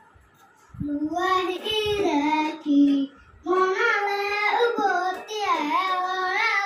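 A young boy singing a song unaccompanied, in two phrases with held, gliding notes; the first begins about a second in and the second after a short breath a little past the middle.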